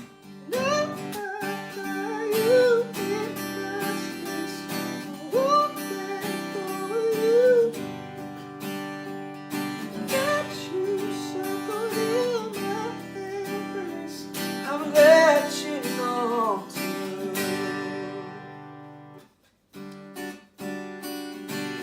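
Acoustic guitar strumming chords while a voice sings wordless melodic runs over it. Near the end the music stops for a moment, then a few strums follow.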